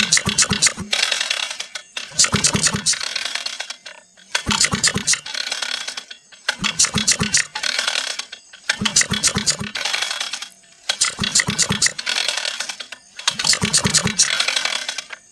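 Small engine of an old mower/harvester cranked over by its pull starter about seven times in a row, each pull a rattling whir of about a second with short gaps between, never catching. The engine is being turned over to test whether the freshly cleaned spark plug still sparks.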